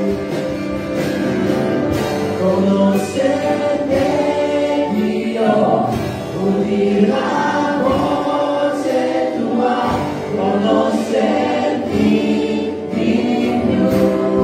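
Small worship band playing a song live: male and female voices singing together over acoustic guitar, keyboard and drums, with a steady beat.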